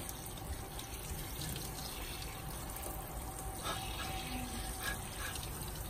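Kitchen faucet running a steady stream of tap water that splashes onto a puppy's wet body in a stainless steel sink.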